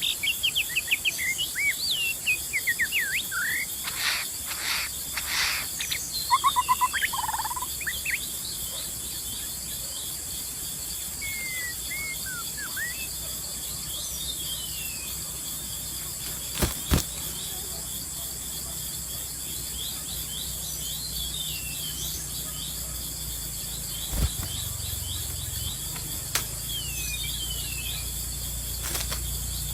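Songbird song of quick rising and falling whistles and chirps, busiest in the first eight seconds and returning in scattered phrases later, over a steady high drone of insects. A couple of sharp clicks come in the second half.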